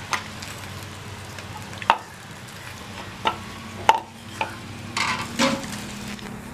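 Sharp knocks and taps of a wooden rolling pin and rolling board as flatbread dough is handled, about five separate knocks spread out, with a longer rubbing scrape of dough on the board about five seconds in, over a faint steady low hum.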